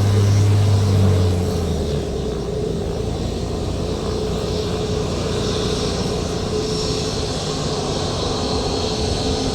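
Aircraft engine noise: a steady rumble with a steady hum. A louder low drone fades out about a second and a half in.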